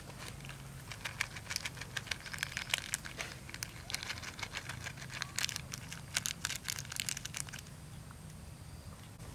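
A small clear plastic sachet crinkling and crackling as it is torn open by hand and shaken to empty out dried goji berries. The crackling stops near the end.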